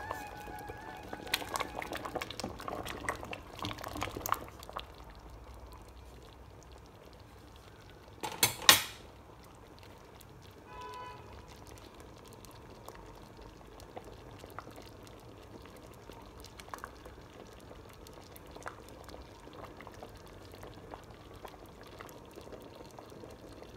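Thick red lentil and pumpkin soup bubbling in a steel pot, with many small scattered pops. One brief, louder double clatter comes about eight seconds in.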